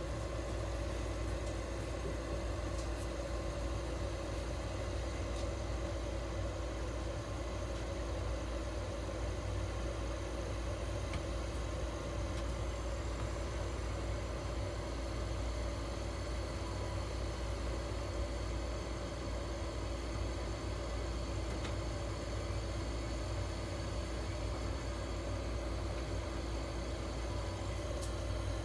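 Steady, unchanging low mechanical hum with a few faint tones above it, from the ICU cage's oxygen, warming and humidifying equipment running.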